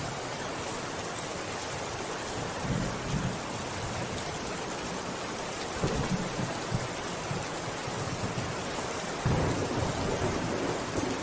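Steady rain hiss with low rolls of thunder, the strongest starting near the end.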